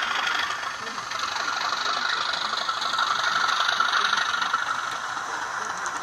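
Recorded engine sound from an N gauge model train's DCC sound decoder, played through a tiny onboard speaker, so it is thin with no bass. It swells in the middle and eases back near the end.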